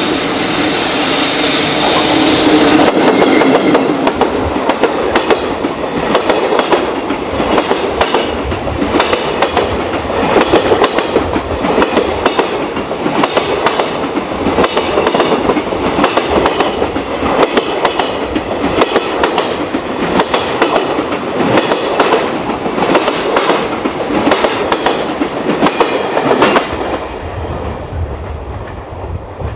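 Long freight train passing over jointed rail: a steady, rapid clatter of wheels across the rail joints that rises in loudness at first and cuts off suddenly near the end.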